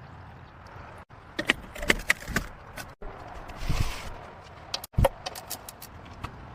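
Metallic clinks, clicks and rattles from hand work on car parts, in short clips cut one after another, with a short hissing noise about halfway through.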